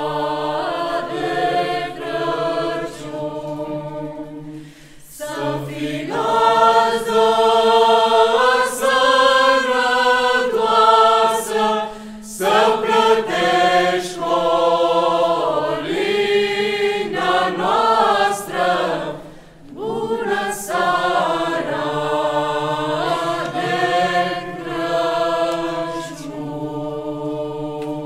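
Mixed parish choir singing a Romanian Christmas carol (colind) in several phrases with short breaths between them, the last phrase fading away near the end.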